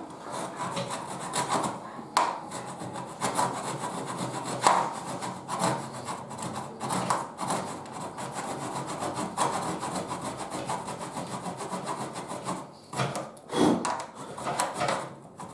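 Small hand saw cutting through a kitchen cabinet panel in quick back-and-forth strokes. It is cutting an opening in the panel. The sawing stops near the end and a few separate scraping sounds follow.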